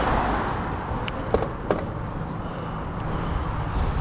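Wind buffeting the microphone of a cyclist riding uphill in strong wind, a steady rough rumble, with a few short sharp clicks between one and two seconds in.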